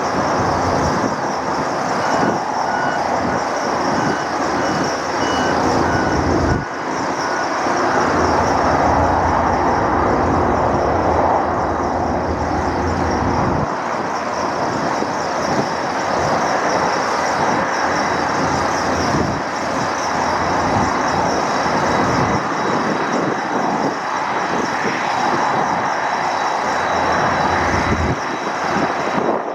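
Jet engines of a Boeing 747-400 on arrival, a loud steady roar with a high whine. A faint electronic beeping repeats from about two seconds in to about seven seconds in.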